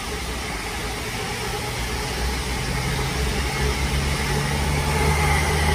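Multiple-unit passenger train passing close by: a steady engine drone over rumbling wheel and rail noise, growing louder as the cars go by.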